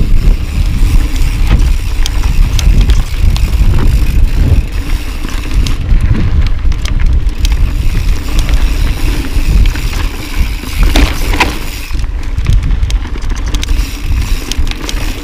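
Mountain bike riding fast down a rough dirt trail: steady wind and tyre noise with frequent small knocks and rattles from the bike. A brief higher-pitched squeak comes about eleven seconds in.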